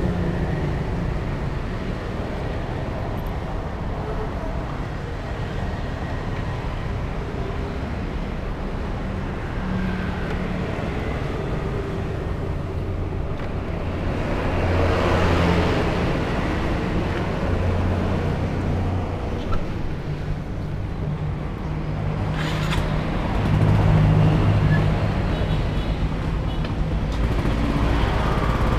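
Motorbike engines running and road traffic passing, swelling louder twice as vehicles go by or pull in, with one short click.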